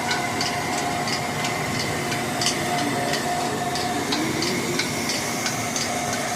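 Electric atta chakki (flour grinding mill) running while grinding wheat, a steady hum with a rapid, even ticking, about three clicks a second.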